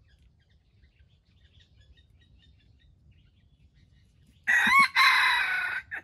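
A junglefowl rooster crowing once near the end: a short crow of about a second and a half that breaks briefly after its rising opening note, then holds level. Faint bird chirps before it.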